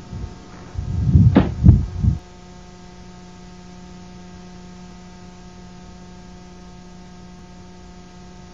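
A few loud, muffled bursts in the first two seconds, then a steady electrical hum with a buzzy stack of even tones that holds unchanged to the end, a fault in the recording's sound rather than anything at the roadside.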